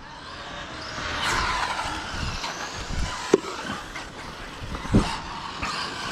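Radio-controlled cars with brushless electric motors running on a gravel track: motor whines rising and falling as they pass, over the hiss of tyres on gravel. Two sharp knocks, about three and five seconds in.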